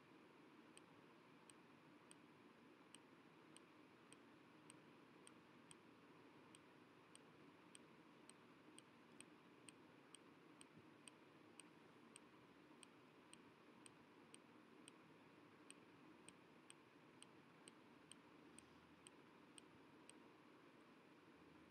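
Near silence: faint room tone with a soft, very regular tick, a little over two ticks a second.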